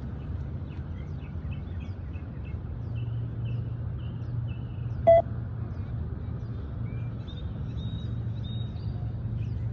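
A single short electronic beep from a beep-test recording, about halfway through, signalling runners to reach the line and turn for the next 20 m shuttle. Birds chirp throughout over steady low background noise.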